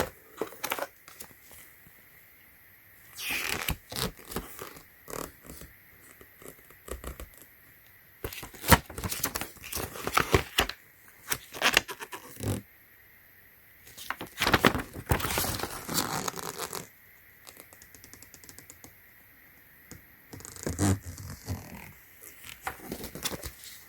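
Hard plastic EV charging adapter being handled and turned over in the hands: irregular scrapes, rubs and clicks, in clusters with short quiet gaps between them.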